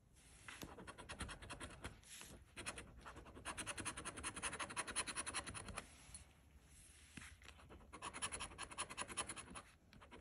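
A coin scratching the latex coating off a scratch-off lottery ticket in quick, rapid strokes. It comes in three spells with short pauses between them.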